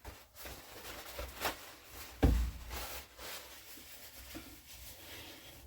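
Light clicks and taps of small carburettor parts and hand tools being handled on a bench, with one sharper knock about two seconds in.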